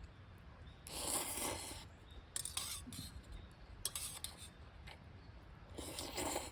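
Noodles being slurped in four short noisy bursts, with chewing between them.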